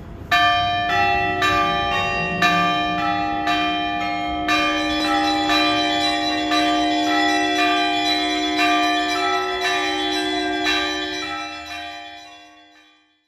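Church bells ringing a peal of several pitches, struck about twice a second with long ringing tones, fading out near the end.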